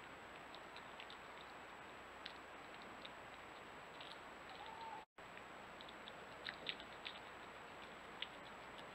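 Red fox chewing food: faint, irregular small clicks and smacks over the steady hiss and thin high whine of a trail camera's microphone. The sound cuts out for a moment about five seconds in.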